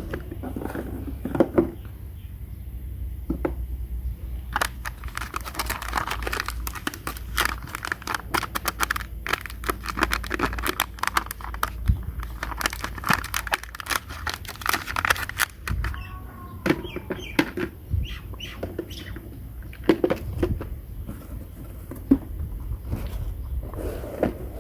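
Small plastic miniature toy kitchen pieces being handled, with many quick clicks and taps that come thickest through the middle.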